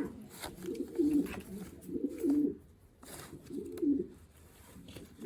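Racing pigeons cooing: several low, wavering coos in a row with short pauses between them.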